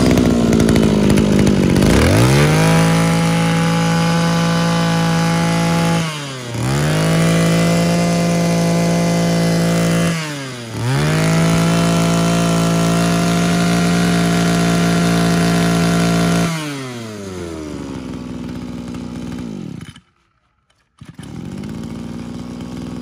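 Mitsubishi 23cc two-stroke brush cutter engine revving to a high steady speed, with the throttle let off briefly twice. It drops to a lower speed, cuts out, and then runs again near the end.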